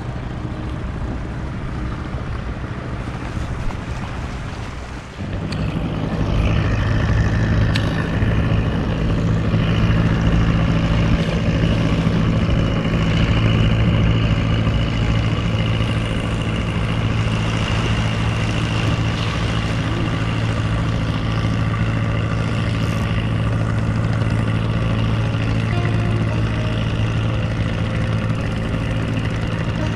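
Engine of a wooden fishing boat running steadily, a low even drone that comes in louder about five seconds in.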